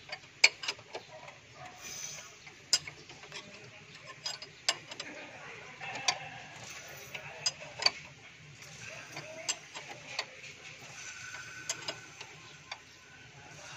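Irregular sharp metallic clicks and ticks as a Mitsubishi 4G13 four-cylinder engine is turned over by hand at the crankshaft pulley with its valve cover off. This is the stage of a valve clearance adjustment where the crank is turned until the exhaust rocker sinks.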